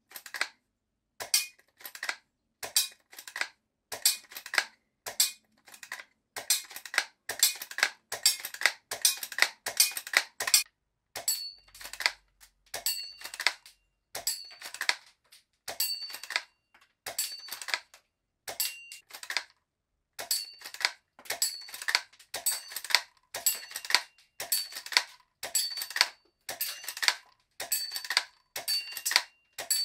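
A steady run of sharp clicks and metallic clinks, about one or two a second, with silence between them. From about twelve seconds on, many of them carry a brief high ringing ping.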